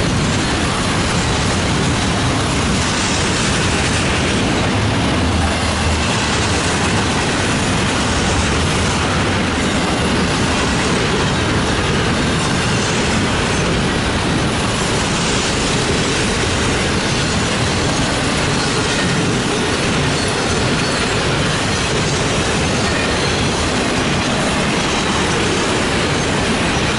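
Cars of a Norfolk Southern intermodal freight train rolling past close by: double-stack container well cars, then flatcars with trailers, their steel wheels running over the rails in a steady, unbroken rumble and clatter.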